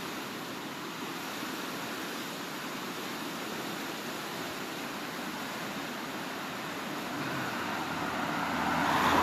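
Steady road noise of a moving vehicle, with a rushing swell near the end.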